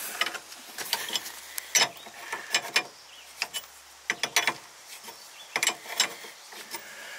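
Irregular metallic clicks and scraping as a red hose-end fitting clamped in a bench vise is threaded together by hand onto braided stainless hose.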